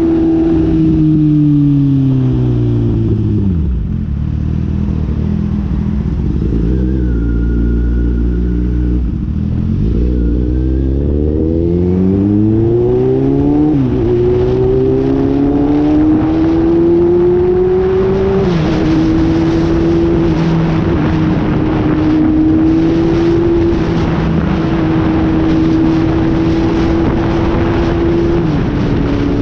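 Four-cylinder sport motorcycle engine heard while riding: it winds down to low revs, then accelerates through two gear changes and settles into a steady cruise, with wind buffeting the microphone from about two-thirds of the way in.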